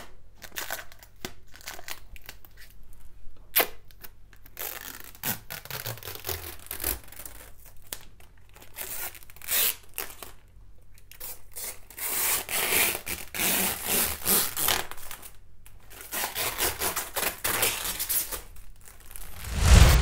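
Clear protective plastic film being peeled off a tempered-glass PC case side panel, crackling and crinkling in irregular bursts. Near the end a loud low boom from a transition sound effect.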